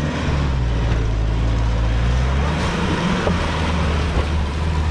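Mitsubishi L200 pickup's engine running under load as the truck climbs a steep dirt slope slowly, in low gear, with a steady low engine note.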